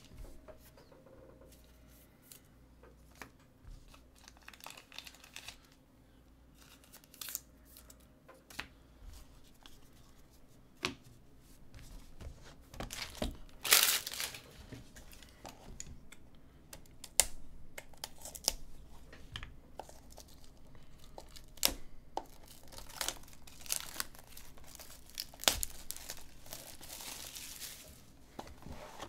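Trading cards and card boxes being handled on a tabletop: intermittent crinkling and tearing of paper and plastic packaging, with scattered light clicks and taps. The loudest rustle comes about halfway through, and a run of them follows near the end.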